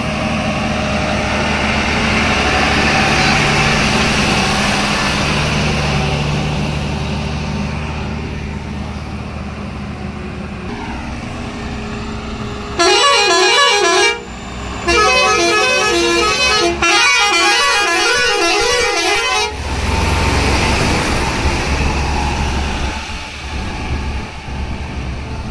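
Heavy loaded goods trucks driving past with their diesel engines running. About halfway through, a truck's musical air horn plays a repeating multi-note tune for several seconds, with a short break after the first second.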